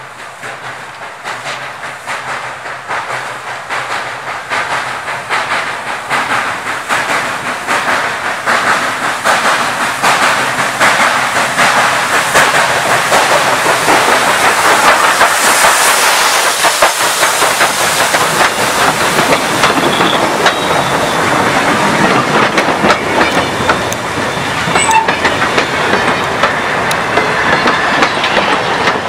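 Articulated 2-6-6-2 steam locomotive working toward and past, its chuffing growing steadily louder, with a burst of steam hiss as the cylinders go by about halfway. Freight cars then clatter past over the rail joints.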